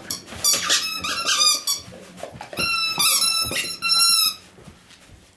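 Squeaky dog toy being chewed by a dog, giving a run of high squeaks, some short and wavering and some drawn out, stopping a little after four seconds in.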